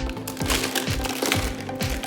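Background music with a steady beat, a little over two thumps a second, under held tones.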